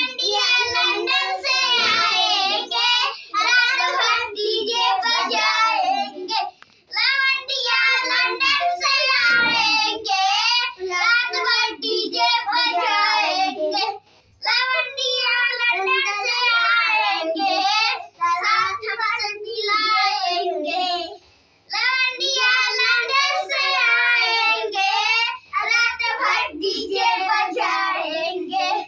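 Children singing a song without instruments, in high voices with short breaks between phrases.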